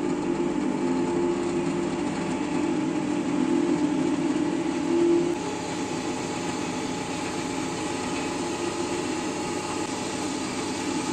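Belmash variable-speed drill press with a 1100 W motor and belt variator, running with no load. A steady hum and whir as the speed handle is turned up and the spindle speed climbs to about 2000 rpm.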